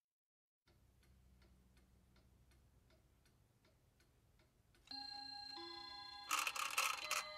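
A clock ticking quickly and evenly. About five seconds in, sustained music tones come in over the ticking, with a loud bright shimmering swell near the end.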